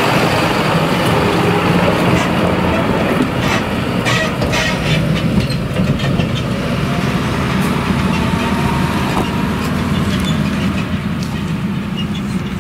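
A tractor pulling a silage transport trailer rolls past close by, its engine running and the trailer rattling and knocking as it goes. Behind it the Claas Jaguar 970 forage harvester runs steadily, chopping maize. The din eases slightly near the end.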